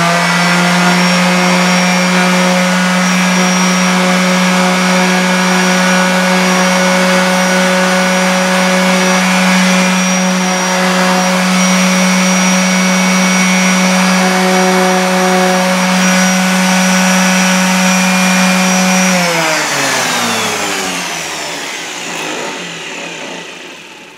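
Orbital sander with 400-grit paper running at a steady pitch, sanding down paint runs filled with polyester glazing putty. About 19 seconds in it is switched off and winds down with falling pitch, fading out over the next few seconds.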